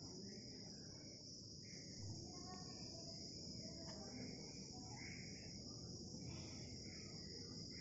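Faint, steady high-pitched trilling of insects, a continuous chorus with no breaks.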